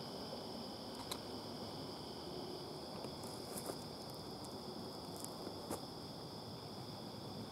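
Steady high-pitched insect chorus, with a few short crunches of footsteps on dry forest leaf litter.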